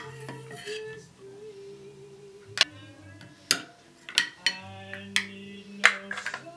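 Metal ladle clinking against green-lipped mussel shells and the plate as steamed mussels are served: a string of sharp clinks at uneven intervals, most of them in the second half and bunched near the end, over soft background music.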